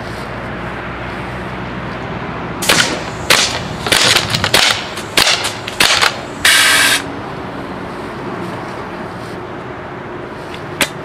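A fully automatic paintball gun, converted to fire AA batteries, shooting a quick irregular string of sharp pops at point-blank range into a quarter-inch plexiglass sheet, which shatters under the hits. A half-second hiss follows the last shots.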